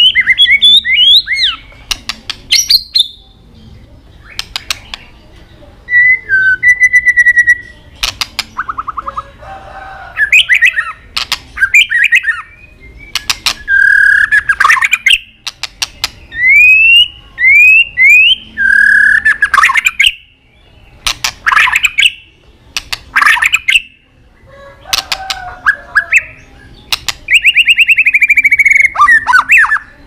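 White-rumped shama singing in bursts: short rising whistled notes mixed with rapid harsh clicking 'tạch' calls and a few buzzy rattles, with brief pauses between phrases.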